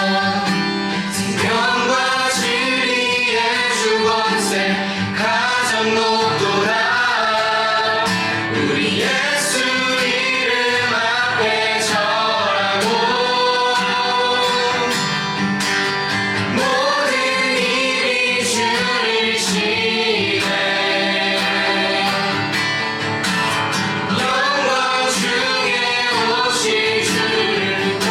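Contemporary worship song performed by a band, with a group of voices singing together over the instruments.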